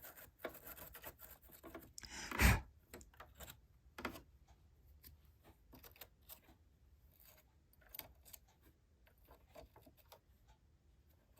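Light clicks and rubbing from hands handling small parts and tools at a sewing machine, with one louder knock about two and a half seconds in.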